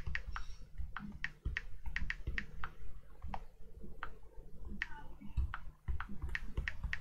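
Typing on an iPad's on-screen keyboard: an irregular run of light taps and clicks, a few a second, with a brief pause near the end.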